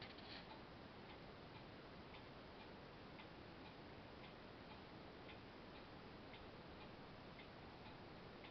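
Near silence: a steady faint hiss with soft, regular ticks about twice a second, like a clock ticking.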